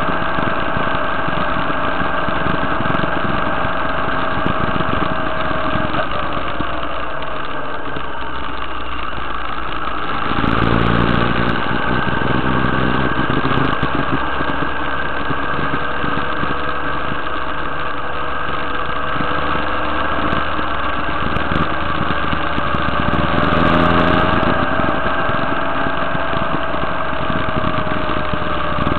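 Motorcycle engine running under way, heard from on board. The engine note falls around six seconds in, grows louder and deeper about ten seconds in, and rises again with a swell in loudness near twenty-four seconds.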